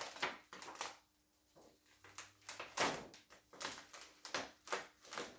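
Thin plastic filter sheet of an LED TV's backlight being pulled up and handled, giving irregular crackles and clicks with a short pause about a second in.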